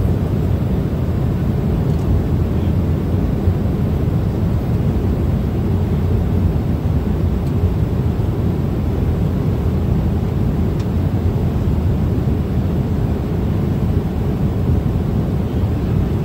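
Steady airliner cabin noise: an even low rumble of engines and rushing air heard inside the passenger cabin, without change.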